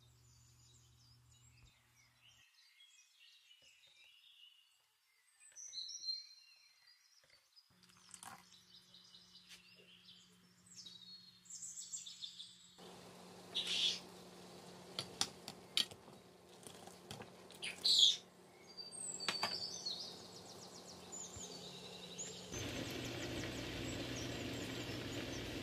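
Small birds chirping and tweeting now and then over a low steady hum. From about halfway, a steady hiss of water heating to a simmer in a saucepan joins in and grows louder near the end.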